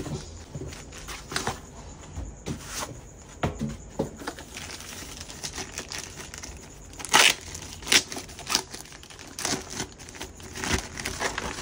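Packaging being handled during an unboxing: wrapping crinkling and rustling in irregular bursts, with short tearing sounds. The sharpest rustles come about seven and eight seconds in.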